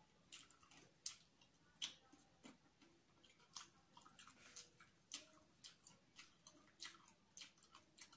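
Chewing and mouth sounds: irregular wet clicks and smacks, several a second, as a mouthful of rice and fried chicken eaten by hand is chewed.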